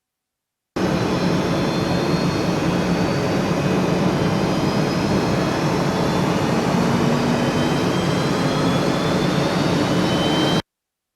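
Steady jet-like roar with faint high whistling tones slowly rising, starting suddenly about a second in and cutting off abruptly near the end: a layer of a recreated Gundam mobile-suit start-up sound effect.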